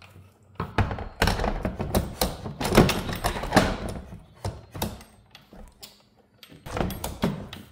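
Enel X JuiceBox 40 EV charger's housing knocking and scraping against its metal wall-mount bracket as it is worked down onto the bracket: a run of clunks and rubbing, a short lull, then more clunks near the end. The unit is sticking and not yet sliding home.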